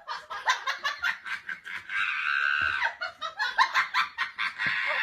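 Laughter in quick, repeated bursts, rising to a longer, high-pitched shriek of laughter about two seconds in.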